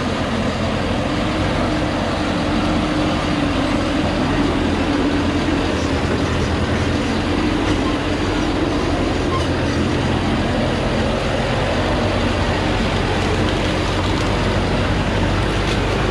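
Thaco Forland truck's diesel engine running steadily under load as the truck crawls up a steep, rocky slope.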